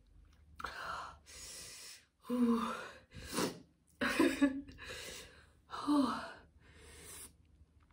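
A woman breathing hard and gasping through her mouth, about eight quick breaths in and out, some with a little voice in them, from the burning heat of the superhot Jolochip chili chip she has eaten.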